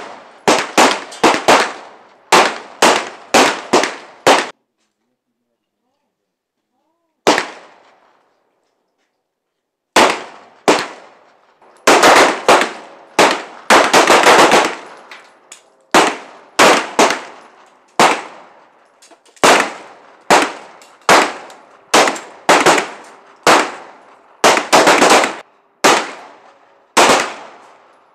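Semi-automatic pistols firing: strings of single shots, each a sharp crack with a short echoing tail, sometimes from several shooters overlapping. The firing breaks off after about four seconds, one shot comes a few seconds later, then steady firing picks up again about ten seconds in.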